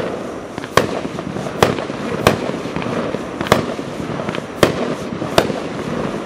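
Colour smoke tubes hissing steadily as they burn. Six sharp pops cut through the hiss at uneven intervals of roughly one second.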